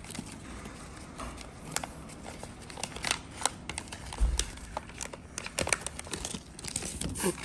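White paper wrapping crinkling and tearing as a parcel is pulled open by hand: irregular crackles and rustles, with a dull bump a little past halfway.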